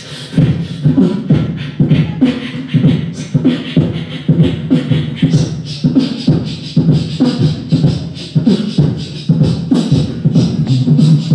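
Two beatboxers performing together into microphones through a PA: a fast, steady rhythm of vocal drum hits with a low sustained tone underneath.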